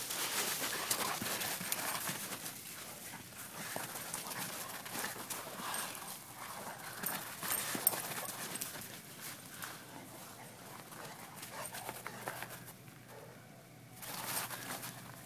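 A Dogue de Bordeaux and a Brussels Griffon playing in snow: paws scuffing and crunching over the snow in an irregular patter, with the dogs' own sounds mixed in.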